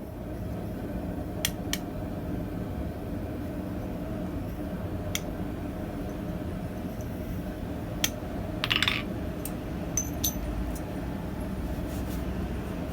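Light metallic clinks and taps of small steel tools against steel, a few scattered singly and one short cluster about nine seconds in. They sound over a steady low rumble.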